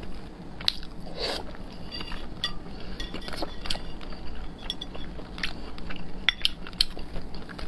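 Close-miked eating of pork belly: wet chewing and mouth sounds, with chopsticks clicking against the bowl as a piece is picked out of the sauce. There is a run of clicks near the end.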